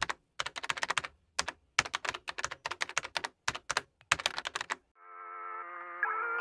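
Computer keyboard typing in quick bursts of clicks. The typing stops about five seconds in, and music with held notes fades in.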